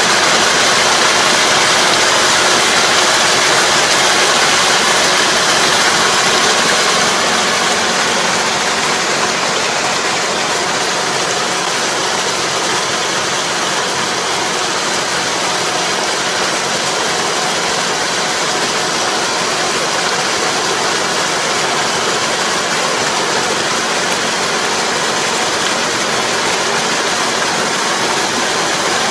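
Tractor diesel engine running steadily under load while a tractor-driven puddling harrow churns the flooded paddy's mud and water, a dense steady rushing drone. It eases slightly about seven seconds in.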